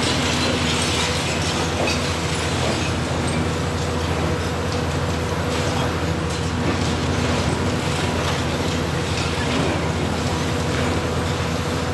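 Hitachi Zaxis 350 high-reach demolition excavator's diesel engine running steadily under load while its Trevibenne crusher jaw crunches into concrete, with scattered cracks and knocks of breaking masonry and falling debris.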